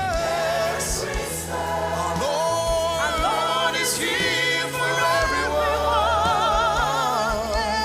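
Gospel choir singing held notes with vibrato over a band backing with a steady bass line and occasional cymbal strokes.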